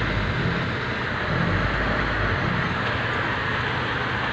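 Car carrier truck's engine running steadily at idle, a continuous low hum under an even mechanical noise.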